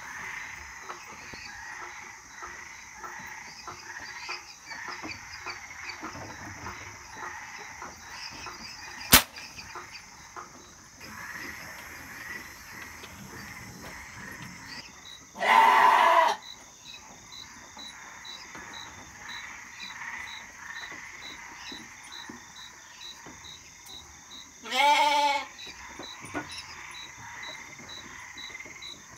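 A single sharp shot from a Crosman 1322 multi-pump .22 air pistol about nine seconds in, the loudest sound, over a background of busy faint chirping. Later come two loud bleats from farm livestock about nine seconds apart, with a faint regular ticking about twice a second behind them.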